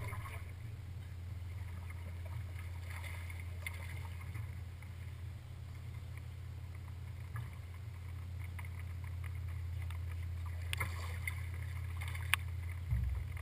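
Steady low hum from a bass boat, with a few faint ticks late on, a sharp click and then a short low knock near the end.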